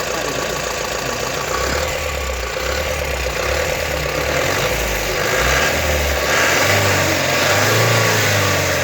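Mahindra DI 3200 diesel engine running with a failed turbocharger. Its speed rises somewhat in the second half.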